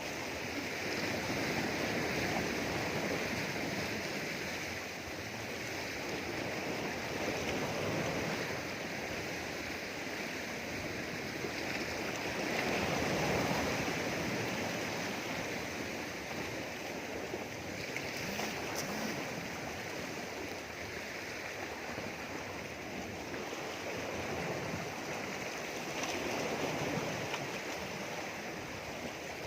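Sea waves washing in: a continuous rush of surf that swells and eases in irregular surges.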